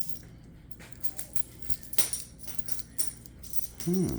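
A dog leash jingling and clinking in a run of sharp metallic clicks, shaken to rouse a husky. Near the end the husky answers with a short vocal call that rises and falls in pitch.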